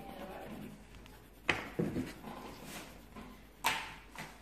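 Coloured pencil scratching across paper while a drawing is coloured in, with a few louder short strokes, the loudest about a second and a half in and again near the end.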